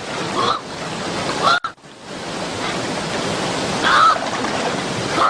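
Steady rushing water noise like surf, with an abrupt cut about a second and a half in, and three short high calls over it.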